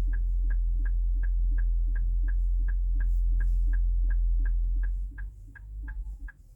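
Hazard-light flasher ticking evenly, about three ticks a second, over a low hum that fades out about five seconds in.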